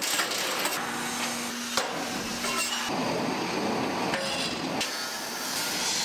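Irregular knocking and clanking of hand tools against a large steel rotational mould and the moulded plastic tank, over steady factory noise.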